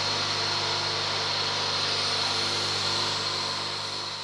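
Electric motor of a shop machine tool running steadily with a low hum and a high whine, fading out near the end.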